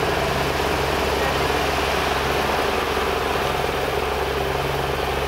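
Sightseeing boat's engine running steadily under way, an even low drone heard from on board.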